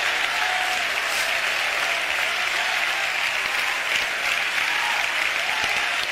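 A large church congregation applauding steadily.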